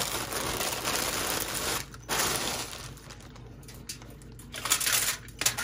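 Crinkling rustle of aluminium foil and wrapping as hamburger buns are handled and set down on a foil-lined baking tray, in two spells, then a few light knocks near the end.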